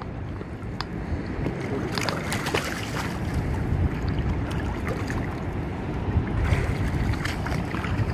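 Shallow water sloshing and splashing as someone wades and hauls a fishing net in by hand, with a few sharper splashes about two seconds in. Wind rumbles on the microphone throughout.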